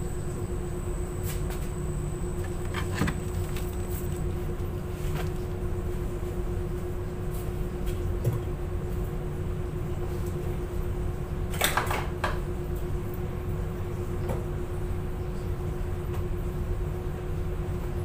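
Steady machine hum and low rumble of an industrial laundry room, with one constant mid-pitched tone, broken by a few clicks and knocks; the loudest is a quick clatter about twelve seconds in.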